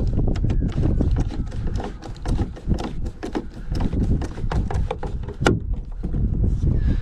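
Bus door latch clicking and clacking as its metal parts are worked and tried, many irregular sharp knocks a second, over a low wind rumble on the microphone.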